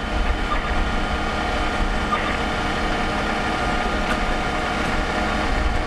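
Fire apparatus engines running at idle: a steady low rumble with several steady tones held over it.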